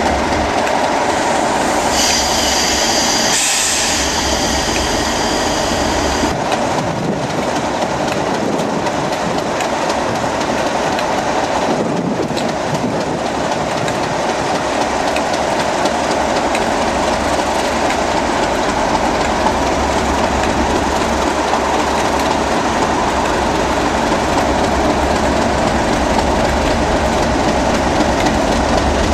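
Two English Electric Class 37 diesel locomotives with their 12-cylinder engines running at idle: a steady, dense engine drone. A high whine joins in briefly about two seconds in.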